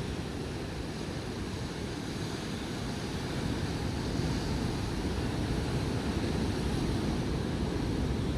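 Ocean surf breaking and washing against a rocky shore: a steady rush of waves that swells a little about halfway through, with wind buffeting the microphone.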